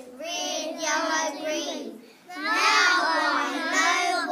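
A child singing in a high, wavering voice: two phrases with a short break about two seconds in.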